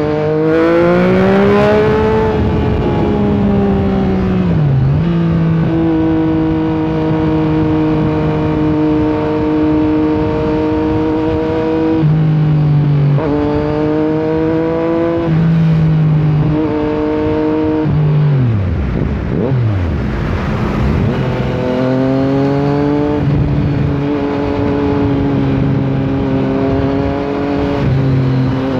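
Yamaha MT-09's inline three-cylinder engine under way: the revs climb at the start, then hold a steady pitch. Past the middle the pitch steps up and down several times, dives sharply as the bike slows, then climbs again and settles to a steady run.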